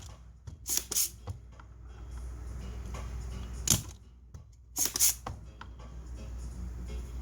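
Soldering iron tip sizzling in fresh solder and flux on a circuit-board joint, in several short hisses while a MOSFET leg is being desoldered.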